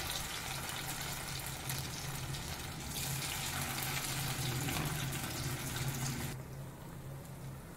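Cornflour-and-spice-coated potato cubes sizzling steadily as they shallow-fry in hot oil, stirred with a wooden spatula. The sizzle eases about six seconds in, over a steady low hum.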